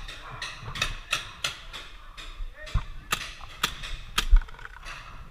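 Paintball markers firing, an irregular string of sharp pops about two a second, with one heavier thump a little past four seconds in.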